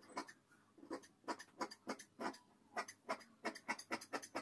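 Large dressmaker's shears cutting through two layers of fabric along a chalked line: a steady, uneven run of crisp snips, about three a second.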